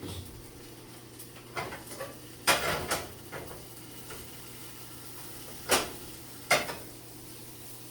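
Kitchen clatter of metal utensils on cookware: a few sharp clinks and scrapes, the loudest a quick cluster about two and a half seconds in, then two single knocks a few seconds later.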